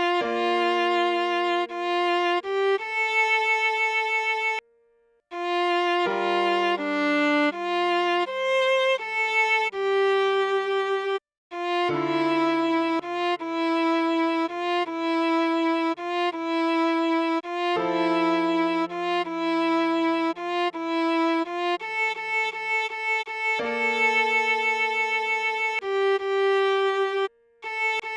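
A viola plays a slow melody, one note after another, at half speed for practice. Long lower notes are held underneath some phrases. The playing stops briefly about five seconds in, again near the middle, and just before the end.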